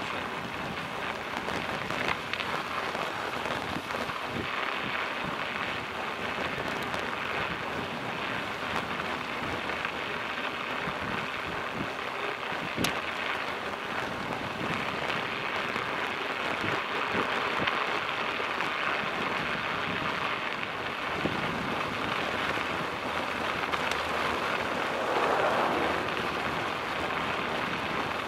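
Bicycle tyres rolling over a snow-covered road, giving a steady hiss, with one sharp click about halfway through.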